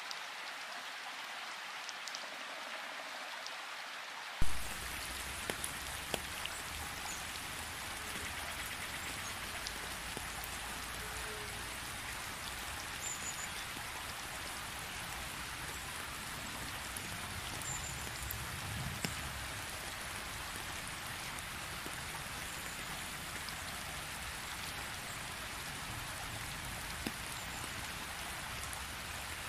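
Steady rain falling, with scattered single drops ticking on wet ground and a puddle. About four seconds in there is one brief loud knock, and after it the rain sounds fuller, with a low hum underneath.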